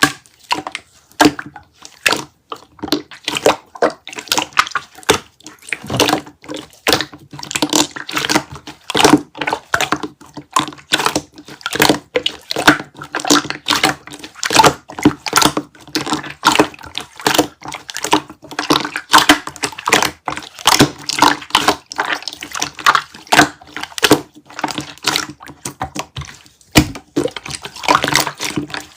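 Dense, irregular crackling and clicking with wet squishing, close to the microphone, as a soft sticky material is handled; a faint steady low tone runs underneath.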